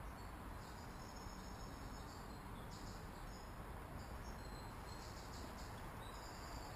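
Crickets chirping faintly in high-pitched pulsing trills that start and stop every second or so, over a steady low background rumble.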